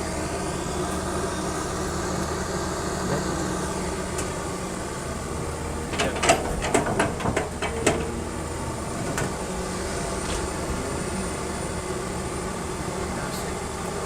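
Kobelco SK140 excavator's diesel engine running steadily, with a burst of knocks and clatters about six seconds in lasting roughly two seconds.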